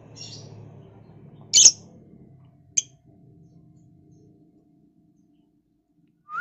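Caged lovebirds giving a few short, sharp calls: a faint chirp at the start, a loud shrill squawk about a second and a half in, a shorter call near three seconds, and a quick rising chirp at the end.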